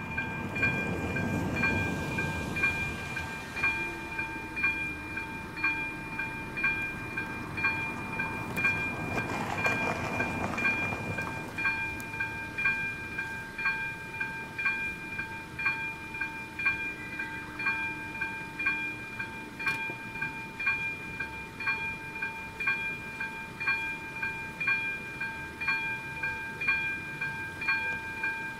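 Electronic warning bell of a Czech railway level crossing ringing in even, repeated strikes, about one and a half a second, showing that the crossing's warning is active. A passing vehicle rumbles over it in the first seconds and again around ten seconds in.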